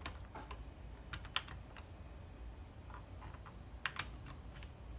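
A few light, scattered clicks and small knocks as a USB cable is handled and plugged in. One sharp click comes about a second and a half in, and a quick double click about four seconds in.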